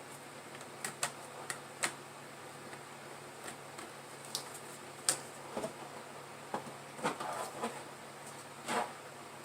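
Handling sounds from work on an open laptop: scattered light clicks and taps of small plastic and metal parts, the sharpest about five seconds in, with brief scrapes around seven seconds and near the end, over a steady faint hiss.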